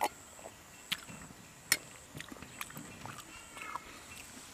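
Three sharp clicks, a little under a second apart, over faint bird chirps and a steady high-pitched tone.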